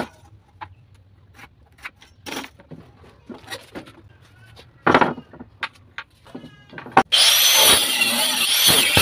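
Scattered knocks and taps of wooden planks being handled, loudest at the very start and about five seconds in. About seven seconds in, an electric angle grinder with a cutting disc starts suddenly and runs loud with a wavering whine, cutting into a wooden board.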